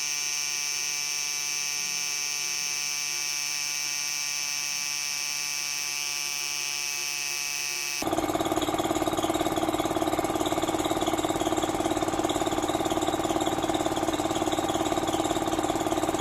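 Small single-stage piston air compressor running and building tank pressure toward its pressure switch's cut-out point. About halfway in, the sound turns louder, with a rapid pulsing beat.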